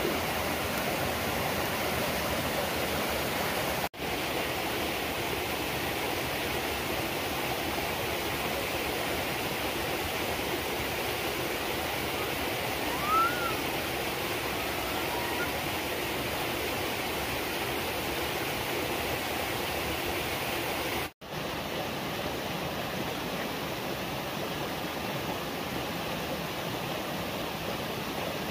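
A steady rush of flowing water, like a stream or small waterfall. It cuts out for an instant twice, about four seconds in and again past twenty seconds, and a short chirp comes about halfway through.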